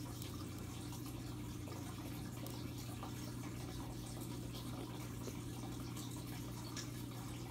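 Aquarium filter running: water splashing and bubbling where the filter outflow enters the surface, with many small fizzy ticks over a steady low hum.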